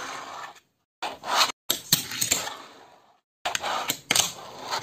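Fingerboard's small wheels rolling on a hard tabletop, then several sharp clacks and scrapes as the board is popped and lands and slides on a stapler. The sound is cut into short takes, each ending in sudden dead silence.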